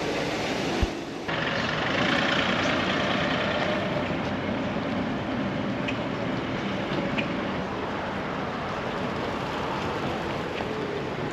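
Steady vehicle noise, a motor vehicle running, with a short knock and a brief break about a second in.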